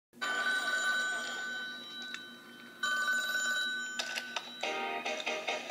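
Telephone ringing twice, each ring about a second long, with a short gap between.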